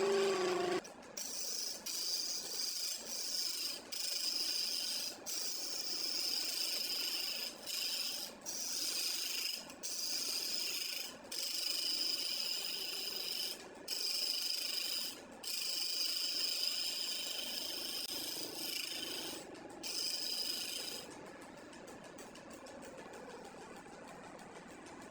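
Wood being worked with an abrasive, a rasping, rubbing hiss in repeated runs of a second or two with short breaks between them. It stops about 21 seconds in.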